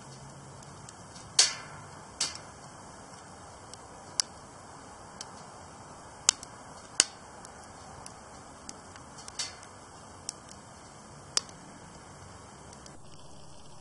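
Wood fire burning in a Solo Stove Ranger fire pit, crackling with about half a dozen sharp, irregular pops over a steady low hiss, the loudest pop about a second and a half in. The fire is well established, with its secondary burn going.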